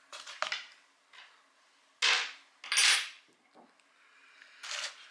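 Short clinks and clatters of tools and metal pump parts being handled and set down on a workbench, four separate knocks, one with a brief metallic ring about three seconds in.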